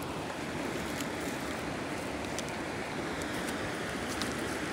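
Steady rushing of river water, with a few faint clicks.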